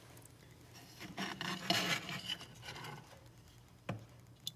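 Handling noise as the transceiver is picked up and moved on the bench: a scraping rub lasting about a second and a half, starting about a second in, then a couple of short knocks near the end.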